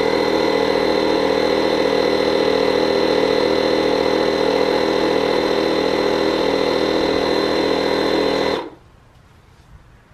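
KYLIETECH 12-volt portable tire inflator's compressor running steadily while inflating a car tire, then cutting off suddenly about eight and a half seconds in.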